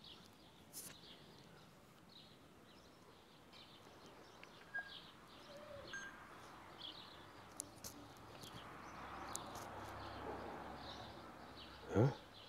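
Small birds chirping faintly in the background, short high chirps every second or so over a low background hiss; a man's voice starts just at the end.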